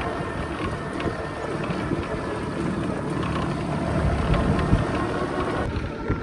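Steady vehicle noise from riding a motorbike, with wind rushing on the microphone.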